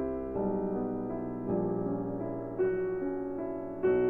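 Piano background music: slow sustained chords, a new one struck about once a second.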